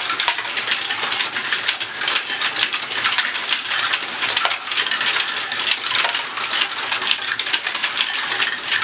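LEGO Great Ball Contraption running: a dense, steady clatter of many small plastic balls clicking against LEGO parts as they roll and drop through the modules.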